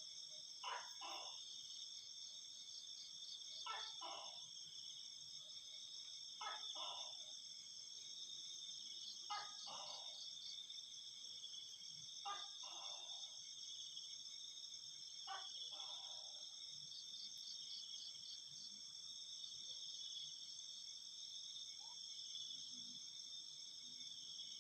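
Night insects, crickets among them, chirring steadily in several high pulsing layers. Over them an animal gives a short two-note call about every three seconds, six times, then stops about two-thirds of the way through.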